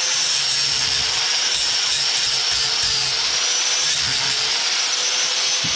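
Grinder running steadily while cutting into a scrapped microwave part, whose windings the cut shows to be aluminum. A steady high whine stays over the grinding noise and wavers slightly as the load changes.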